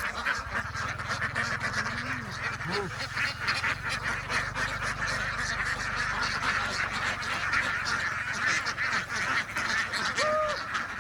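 A large flock of domestic ducks quacking continuously in a dense clamour, with a few separate drawn-out calls standing out. A low steady hum runs underneath for the first seven seconds or so.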